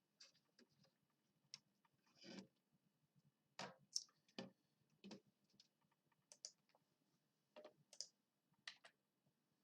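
A dozen or so faint, irregular clicks and taps over near-silent room tone.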